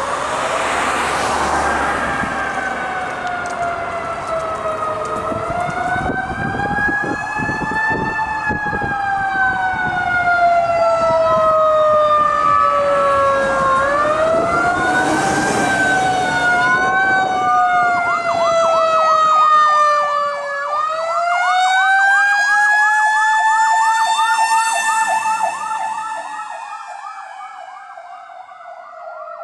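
Fire engine sirens, a Federal Q2B mechanical siren and a PA-300 electronic siren, winding up and down in slow wails that overlap out of step, with a fast yelp joining about two-thirds of the way through. Truck engine and traffic noise lie underneath, and the sound fades near the end as the truck drives away.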